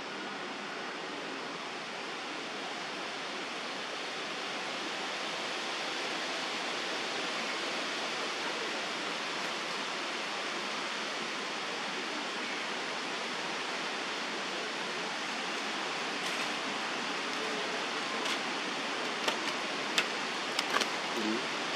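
Steady outdoor background hiss, with a few short sharp clicks near the end.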